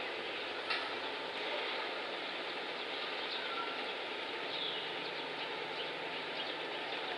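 Steady outdoor background noise, an even hiss, with a few faint short chirps and a single sharp click about a second in.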